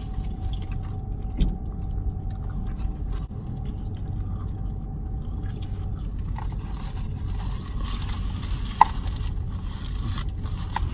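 Cheeseburger paper wrapper crinkling and someone biting and chewing, over the low steady hum of a car cabin. There is one sharp click about nine seconds in.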